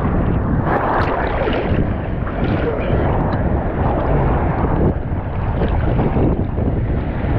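Wind buffeting the microphone over the steady rush of ocean surf in rough water.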